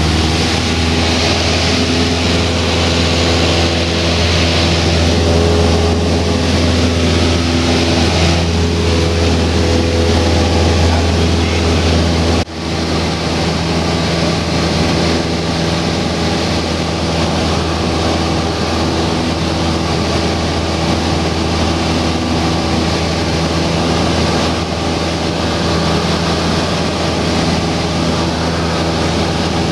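Cessna 172 Skyhawk's piston engine and propeller droning steadily in flight, heard from inside the cabin. The drone dips abruptly for a moment about twelve seconds in, then carries on.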